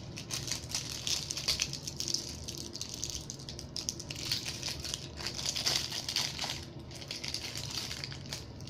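Glitter slime being squished and worked, giving a continuous crackling of many small clicks and pops.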